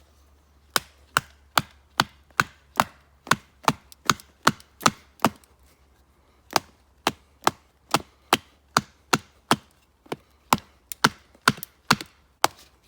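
Knife being batoned through a thick piece of pine: a steady run of sharp wooden knocks, about two and a half a second, as the baton drives the blade down to split the wood, with a short pause near the middle.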